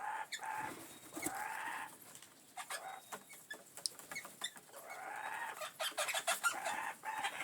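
Wild birds giving two drawn-out, harsh calls that rise and fall in pitch, the first right at the start and the second about two-thirds of the way through, with many small clicks and taps in between.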